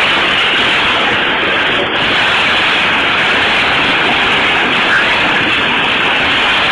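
Dump truck engine running steadily under load as the truck creeps forward with its bed raised, heard as a loud, rough, even noise with no clear pitch.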